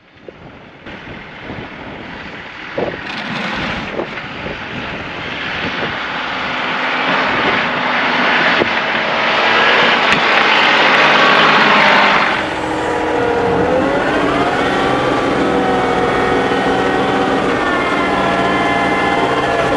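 John Deere 2038R compact tractor's diesel engine running under a rushing noise that builds over the first dozen seconds and drops off suddenly. After that the engine note is clearer, its pitch rising and falling as the revs change.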